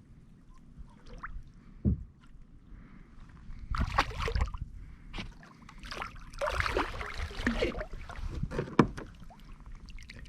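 Water splashing and sloshing against a fishing kayak in irregular bursts, with a couple of sharp knocks on the hull.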